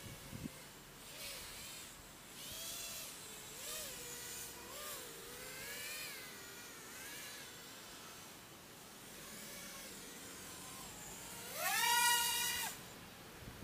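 Brushless micro quadcopter motors (DYS 1104 4000kv with Gemfan 3025 props) whining in flight, the pitch rising and falling with the throttle. Near the end the quad throttles up into a loud, higher whine for about a second, which then cuts off.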